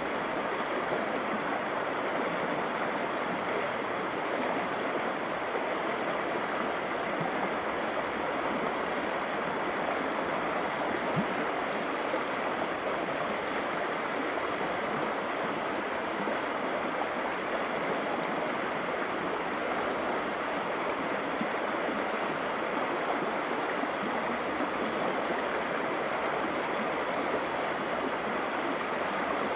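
Fast-flowing shallow river rushing and churning over rocks: a steady, even rushing sound.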